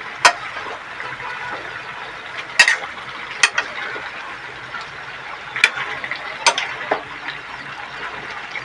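Chicken pieces sizzling in a pot as they are stirred and turned with a spoon, the spoon knocking against the pot several times. The meat is still giving off water while being fried down.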